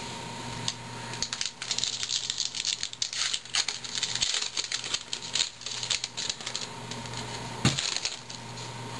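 The wrapper of a retail pack of baseball cards being torn open, a dense run of quick crinkling, crackling rustles, followed by a single soft knock near the end.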